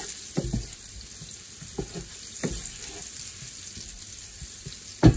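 Chopped onion sautéing in olive oil in a nonstick frying pan, a steady sizzle, with a wooden spoon scraping the pan now and then as it stirs. A sharp knock right at the end.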